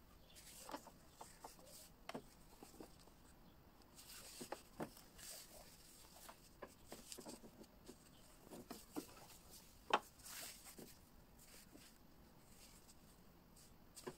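Faint rustling and scattered light clicks of fabric being handled at a sewing machine, with one sharper click about ten seconds in; the machine itself is not running.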